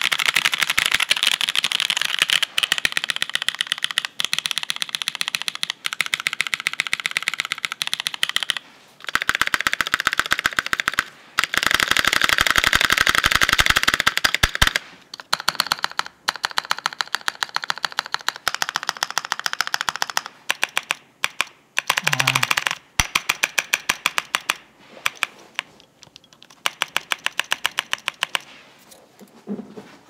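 Mechanical keyboard typed on fast: lubed linear switches made of Novelkeys Cream POM housings with long-pole Kailh Red stems, bottoming out, in an aluminium-plate KMG TKL with GMK keycaps. The keystrokes come in quick runs broken by short pauses.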